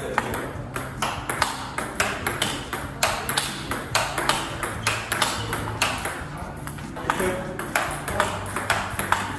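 Table tennis rally: the celluloid-type plastic ball clicking off the rackets' rubbers and bouncing on the table in a steady back-and-forth, about two sharp clicks a second.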